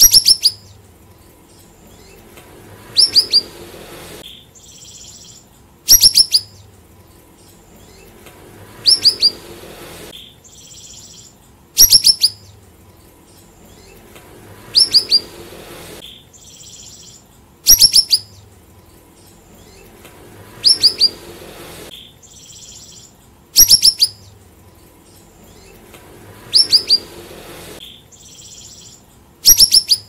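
Caged siri-siri songbird calling about every three seconds, each call a quick burst of two or three sharp, high, downward-sliding notes, with faint softer sounds between.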